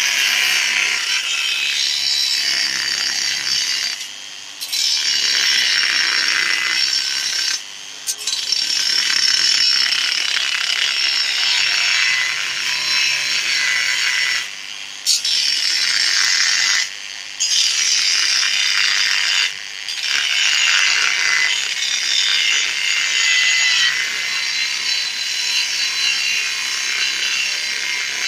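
Angle grinder with a small cut-off disc cutting through a metal bar, a steady harsh grinding noise that dips briefly about five times as the cut eases.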